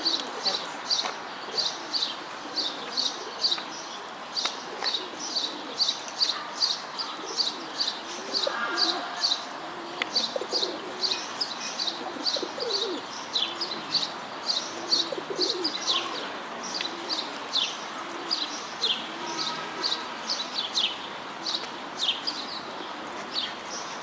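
A small songbird chirping steadily, short high notes two to three a second, over the low cooing of feral pigeons.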